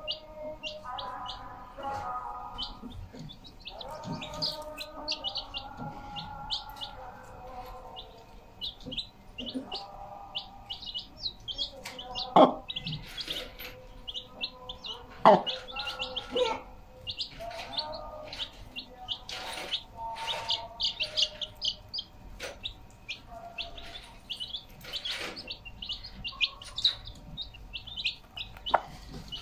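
Young chicks peeping continuously in rapid short high chirps, with a broody hen clucking softly over them in low calls. A few sharp taps break in, the loudest about twelve and fifteen seconds in.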